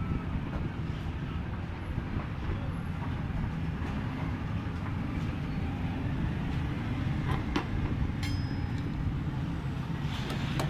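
Steady low mechanical rumble of a running machine, with a few sharp clicks about seven to eight seconds in.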